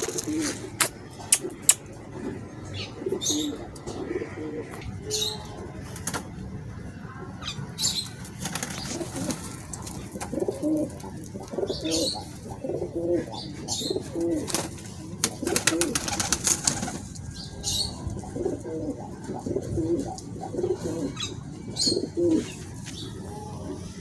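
Domestic pigeons cooing over and over, with wing flaps and short sharp clicks scattered among the calls.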